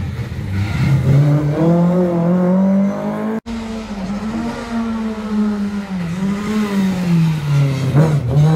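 Lada rally cars' four-cylinder engines revving hard, the pitch climbing and dropping as they change gear and brake for the junction. The sound breaks off briefly about three and a half seconds in, then a second car comes in with the same rise and fall.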